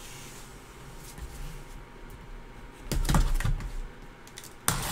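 Cardboard box handled and opened by gloved hands: faint rustling at first, then a cluster of sharp clicks and knocks about three seconds in and another sharp knock near the end.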